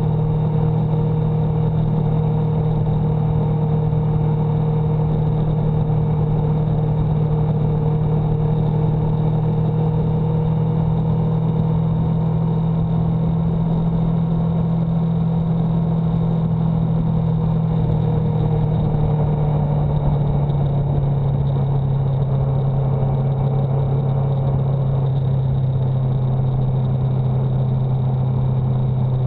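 Steady engine drone with road and wind noise from the vehicle carrying the camera at motorway speed. About two-thirds of the way through, the engine note drops in pitch as the vehicle slows from about 55 to 44 mph.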